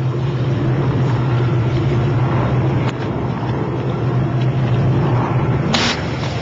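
Small boat's engine running with a steady low hum under a constant rush of noise, with a short burst of noise about six seconds in.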